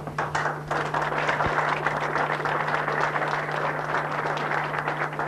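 An audience applauding, a dense patter of many hands clapping that grows fuller about a second in.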